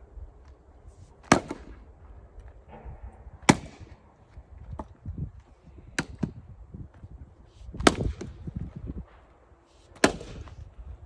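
An axe splitting firewood rounds: five sharp strikes roughly two seconds apart, with lighter knocks between.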